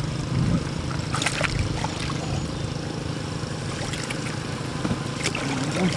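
Hands splashing and grabbing in shallow, muddy floodwater while catching a catfish, with a few short splashes about a second in and again near the end, over a steady low rumble.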